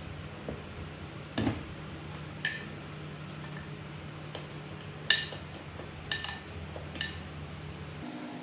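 Metal engine parts of a Honda GX120 clinking and knocking against the aluminium crankcase as they are handled during reassembly: about six sharp metallic clinks with a short ring, the loudest about five seconds in, over a steady low hum.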